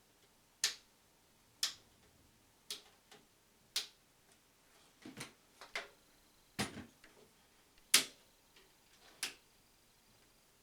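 A series of sharp clicks and light knocks, about ten at irregular intervals, the loudest about two thirds of the way through.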